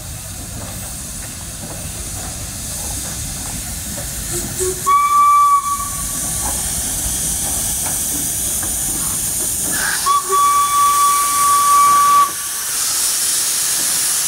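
Steam locomotive moving slowly with a steady hiss of escaping steam. It sounds its steam whistle twice on one steady pitch: a short blast about five seconds in, and a longer blast of about two seconds about ten seconds in.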